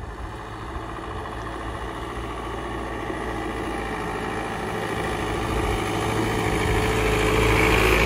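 Force Traveller van's engine approaching, growing steadily louder until it is close by at the end.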